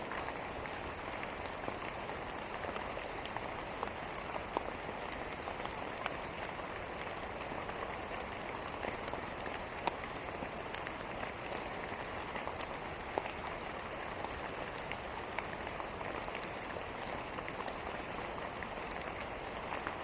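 Steady rain falling, an even hiss with scattered sharper taps of single drops striking a surface.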